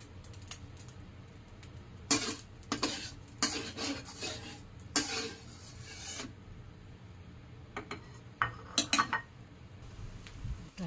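Metal spatula scraping and stirring against a metal wok in a run of strokes from about two seconds in to about six, then a few short clicks of metal on metal near nine seconds.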